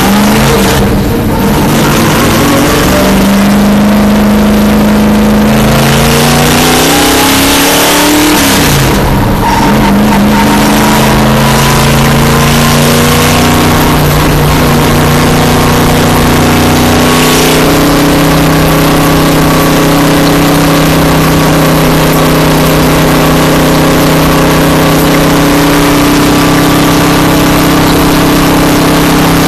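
Stock car's V8 engine heard from inside the cockpit, accelerating hard under full load. Its pitch climbs, dips briefly about eight seconds in, climbs again and then holds steady at high revs at racing speed.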